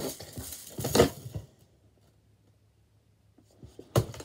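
Plastic slinky-style coil toy rattling and clacking as it is shaken and waved about, loudest about a second in, then stopping. A single sharp knock comes near the end.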